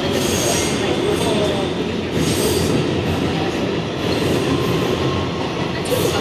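Kawasaki R211A subway car running through the tunnel, heard from inside: a steady rumble and rattle of wheels on rail, with faint brief wheel squeals.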